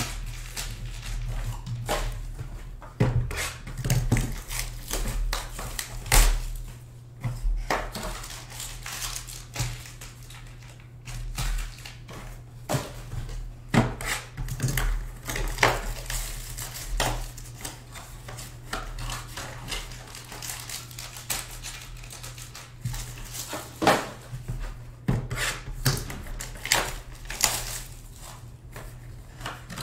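Hands opening cardboard trading-card boxes and handling them on a table: irregular knocks, taps and rustles, over a steady low hum.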